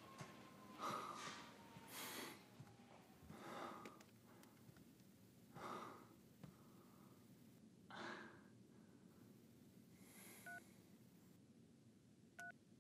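A man breathing hard after a treadmill run: a few heavy breaths spaced a couple of seconds apart. Near the end, a mobile phone gives two short message beeps about two seconds apart.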